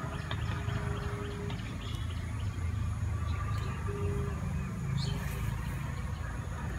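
A steady low rumble with a few faint bird chirps scattered through it.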